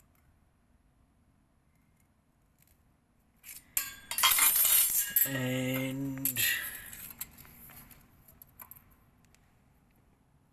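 Metal hardware clattering and jingling for about three seconds, starting with sharp clicks and loudest in the middle, then dying away in a few light clinks.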